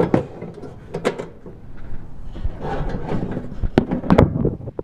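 A stainless stock pot knocking and scraping against the metal slow-cook holder of a Coleman propane cooker as it is pushed in. There are several sharp clunks with rattling between them. The pot won't sit down because the holder's clips are still pushed in.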